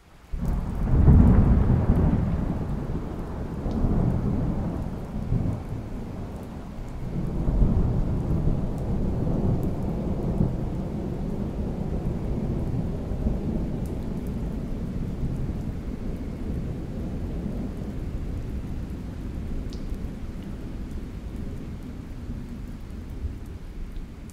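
Thunder rumbling over steady rain. The rolls are loudest in the first couple of seconds and swell again about 4 and 8 seconds in, then die away into the rain.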